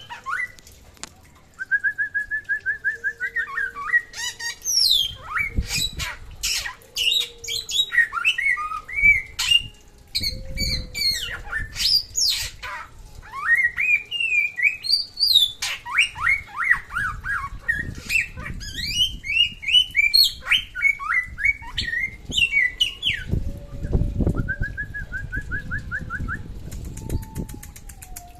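A samyong songbird singing continuously in full song: a varied stream of loud whistled phrases, sweeping notes and chatter. A quick run of evenly repeated notes comes near the start and again near the end, with some low thumps beneath.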